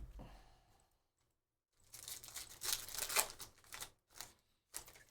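Trading cards and card-pack wrappers being handled: about two seconds of rustling and sliding, then a couple of short rustles near the end.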